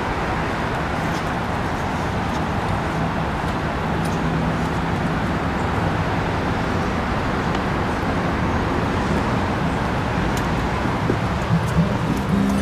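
Steady vehicle noise: an even rush with a low hum underneath, and a few sharp knocks near the end.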